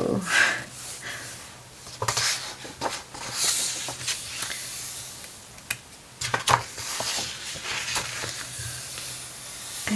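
Pages of a large hardback art book being turned and pressed flat by hand: a series of short paper swishes and rustles a second or two apart, with quieter handling in between.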